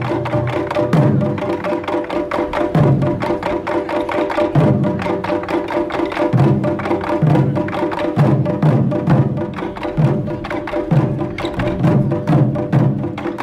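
Ensemble of large barrel-shaped taiko drums played together with sticks: fast, steady strikes with deep booms coming in recurring groups about every second or two.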